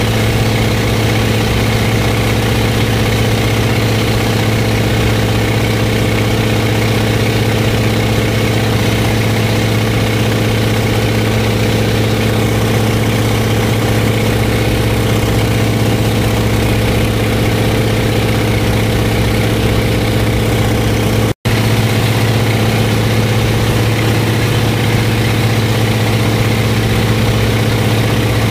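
A floatplane's piston engine and propeller droning steadily in flight, heard from inside the cabin. The sound cuts out for an instant about three quarters of the way through.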